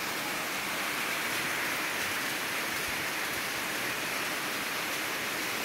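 Steady heavy rain, an even hiss with no breaks.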